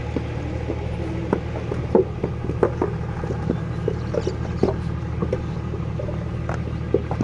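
Wet clay being slapped and thrown into wooden brick moulds by hand, with irregular dull thuds and knocks, about one or two a second. A steady low drone runs underneath throughout.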